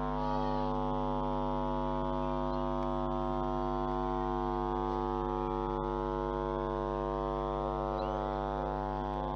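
A steady, awful electrical buzz over a low hum, made by the camera itself while it is zoomed in, not by the train.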